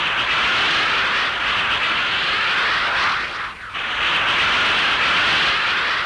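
Cartoon sound effect of futuristic flying craft rushing past: a loud, steady jet-like whoosh. It dips briefly with a sweep in pitch about three and a half seconds in, as one craft passes.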